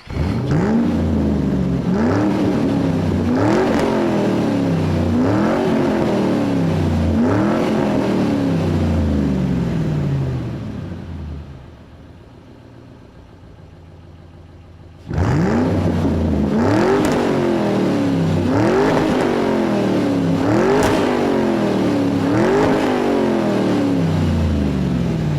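An engine revved over and over: each rev climbs quickly in pitch and then falls back more slowly, about every two seconds. In the middle it drops for a few seconds to a quieter, steady running, then the revving starts again abruptly.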